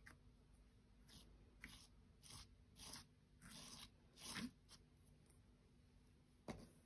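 Clear slime with glitter being pressed and squished by hand: a string of about seven short, faint sticky noises, the loudest around four seconds in and one more near the end.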